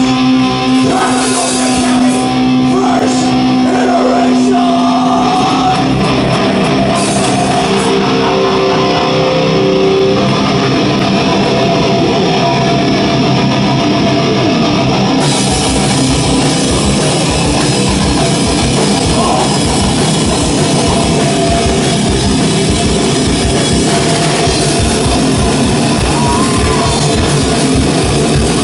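Extreme metal band playing live, with distorted electric guitars and a drum kit. Held, ringing guitar notes open it, and the drums then drive a fast, dense beat from about halfway through.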